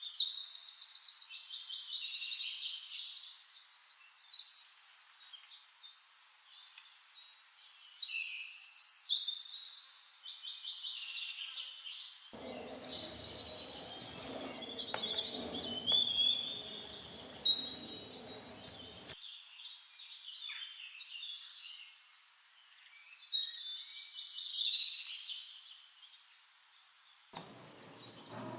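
Several birds singing: repeated high, fast trills and chirps that come and go in phrases. For several seconds in the middle, a faint low background noise runs under them.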